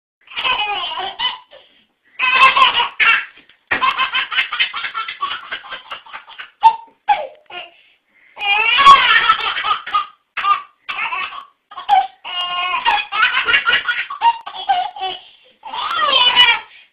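A baby laughing hard in repeated bouts of belly laughs and giggles, separated by short pauses.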